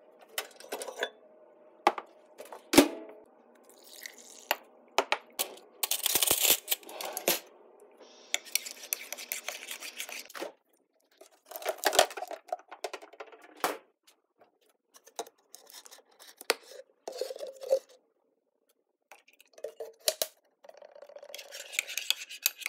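Kitchen handling noises: scattered knocks and clinks of a glass measuring cup, a ceramic mug and a spoon, with two bursts of rustling and dead silent gaps between short clips. Near the end a spoon stirs and clinks in a mug of drink mix.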